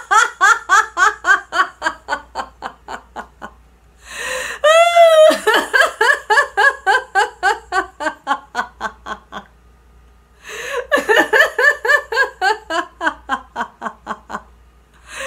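A woman laughing heartily in laughter-yoga style: three long bouts of rapid "ha-ha-ha" pulses, about five a second and falling in pitch, with short pauses between. The second bout opens with a high, drawn-out vocal whoop.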